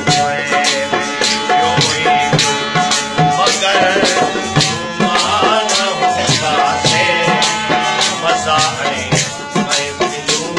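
Live devotional folk music without singing: a harmonium plays held notes and melodic runs over a steady hand-drum and rattle beat.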